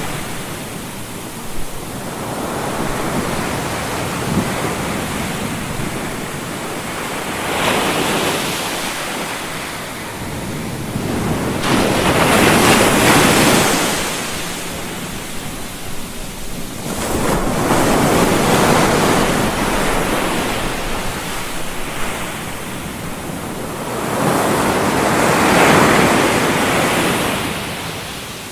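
A white-noise sleep track of rushing noise that swells and fades in slow surges, four times, like surf washing in.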